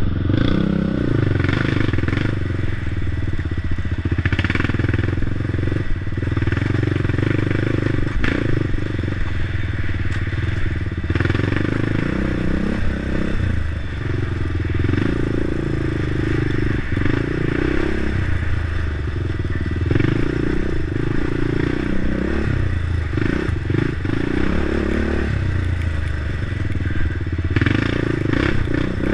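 Crate late model race car's V8 engine running hard at racing speed, its note rising and falling with the throttle.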